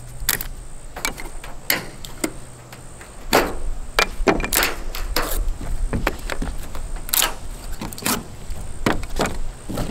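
Irregular knocks and clunks of wooden furring strips being handled, shifted and set down on a roof, about a dozen sharp hits scattered through the stretch.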